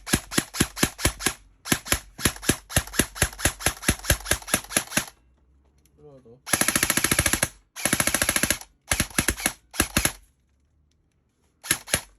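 E&C 333 airsoft electric rifle (AEG) firing BBs, shot to check its FPS. It fires a fast string of single sharp shots, about six a second, then two denser one-second bursts, then a few more shots and two last ones near the end.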